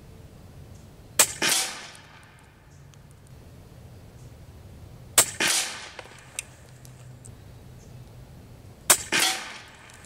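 Steyr LG110 PCP air rifle fired three times, about four seconds apart. Each sharp shot is followed about a third of a second later by a second, longer crack as the pellet strikes the target downrange.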